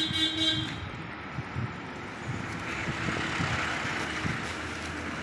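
Street traffic and vehicle engine noise, opening with a brief pitched tone that lasts well under a second. A hiss swells and fades in the middle, as of a vehicle passing.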